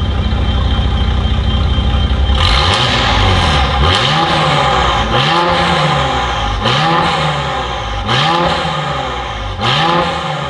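Mercedes-AMG GLE43 Coupe's twin-turbo V6 through an Armytrix valvetronic exhaust, idling steadily, then revved about two and a half seconds in, in a series of about six short blips roughly every second and a half, each rising and falling in pitch.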